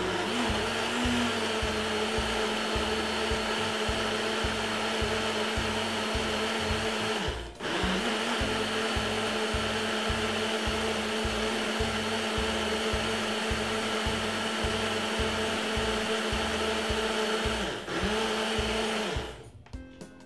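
Personal smoothie blender's motor running steadily at a high pitch, blending chunks of fruit and water into a smoothie. It cuts out briefly about seven seconds in, starts again, and stops just before the end.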